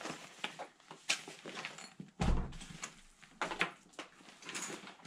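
A nylon backpack and its packed contents being handled and shifted: fabric and plastic packets rustling, with scattered clicks and a dull thump a little over two seconds in.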